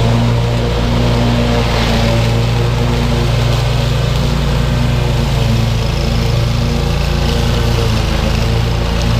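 Scag Tiger Cat II zero-turn mower's 22 hp Kawasaki V-twin engine running steadily under load, its high-lift blades mulching a thick layer of dry leaves with the Qwikchute closed.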